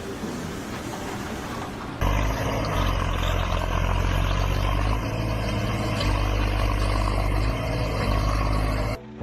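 A steady noisy hiss for about two seconds, then, after a sudden cut, a loud engine running steadily with a deep low hum, which cuts off just before the end.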